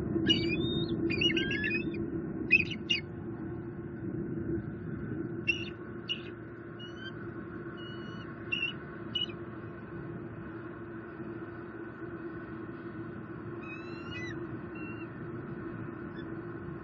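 Bald eagles giving high, thin, piping chatter calls, the pair in protection mode after an intruding eagle flew over the nest. The calls come in dense bursts during the first three seconds, then as sparser short notes, with a rising chirped series about two-thirds of the way through, all over a steady low hum.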